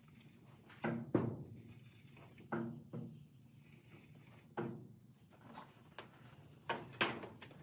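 A handful of sharp knocks and clunks of tools being moved about and handled on a shelf, spread out over several seconds, some of them ringing briefly like metal.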